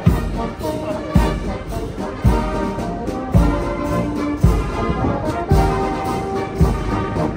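Military marching band of brass and drums playing a march as it passes, with a bass drum beat about once a second under held brass notes.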